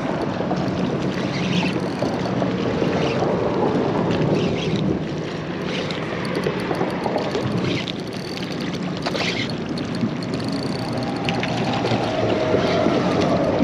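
A boat motor running steadily on the water, with wind on the microphone and the wash of waves.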